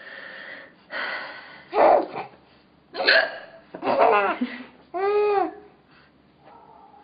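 A woman hiccuping loudly and repeatedly, about six sharp hiccups roughly a second apart, mixed with laughter.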